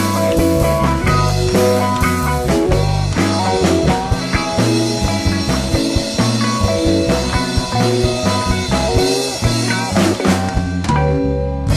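Rock music with drums and guitar.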